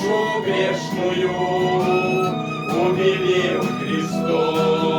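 Instrumental music: a violin melody over a steady backing beat, with no singing.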